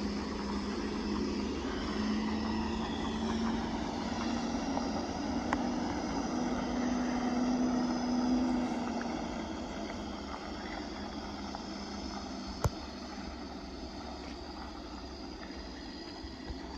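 Heavy Cummins diesel engine of a self-loading log truck running steadily, its note wavering. It grows quieter after about nine seconds. A single sharp click sounds near the end.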